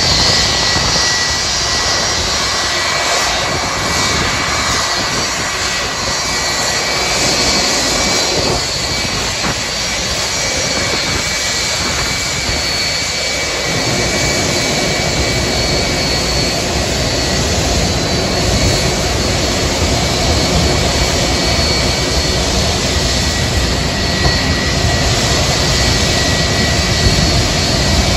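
Boeing 757-200's twin turbofan engines running at taxi power: a steady jet roar with a high whine. A deeper rumble fills in about halfway through.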